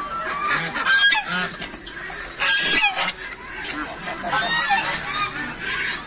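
Domestic geese honking, a string of repeated calls with the loudest about halfway through. The honking is aggressive: a goose is advancing on the person filming.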